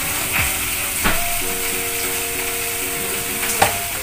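Steady sizzling hiss of food frying in a pan, with two sharp knocks, about a second in and near the end. Background music holds a few steady notes through the middle.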